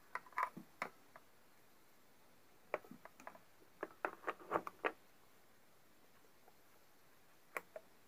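Short clicks and knocks as a mains plug is handled and pushed into a socket on a switchboard. A few come at the start, a dense cluster comes about three to five seconds in, and a last pair comes near the end.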